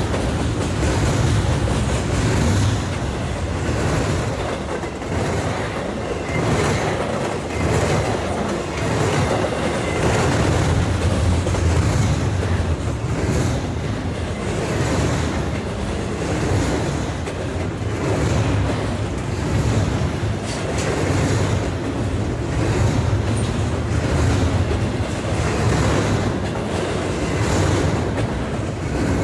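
Norfolk Southern freight train rolling past, a steady rumble of cars with the wheels striking rail joints in a regular repeating rhythm.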